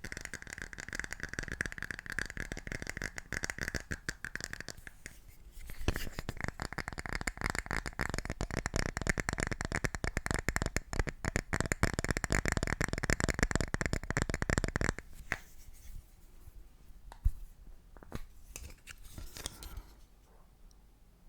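Fast, dense tapping on an object, with a ringing tone under it for the first few seconds. The tapping breaks briefly about five seconds in, runs on until about fifteen seconds in, then thins to a few scattered taps.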